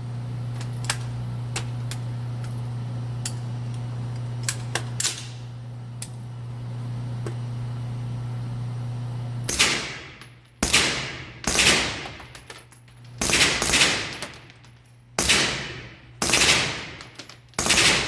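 Suppressed 9mm AR-15 carbine with an integral SD suppressor, fired through a forced reset trigger. About halfway in it begins rapid fire in short strings: about seven quick bursts, each a dense run of shots. Before that there are a few sharp clicks of gun handling over a steady low hum.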